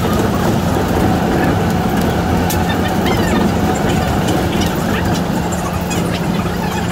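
Shonan Monorail cabin noise sped up three times: a steady running rumble with a constant hum.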